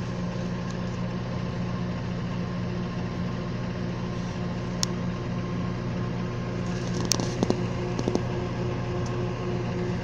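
Microwave oven running with a steady hum while its turntable turns. A few sharp clicks break in, one about halfway through and a short cluster a couple of seconds later.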